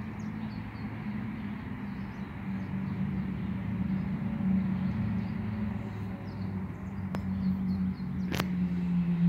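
A steady low mechanical drone that wavers slightly in pitch, with two short sharp clicks near the end.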